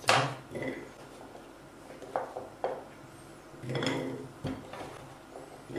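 Kitchen knife chopping carrots on a plastic cutting board: a sharp knock at the start and two lighter ones about two seconds in. Carrot pieces are then dropped into a glass bowl, clinking just before four seconds in.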